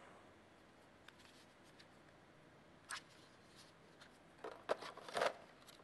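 Faint plastic clicks and handling rattles as a battery pack is fitted into a Sony NEX-FS100 camcorder: one short click about three seconds in, then a quick cluster of clicks and rubbing near the end as the battery goes home.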